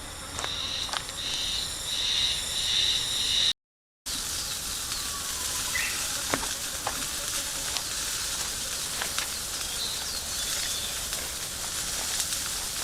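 Food sizzling in an iron frying pan over a campfire, with scattered sharp crackles. For the first three and a half seconds a high steady buzz sits over the sizzle, then the sound cuts out briefly.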